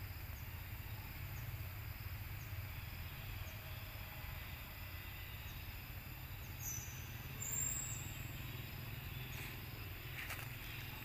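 Outdoor ambience: a steady low rumble with a faint even hiss and a thin high hum, and a brief slightly louder sound about seven seconds in.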